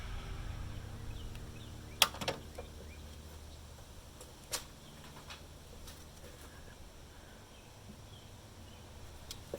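A few sharp clicks and taps, the loudest about two seconds in and two more near the end, over a faint low hum that fades away.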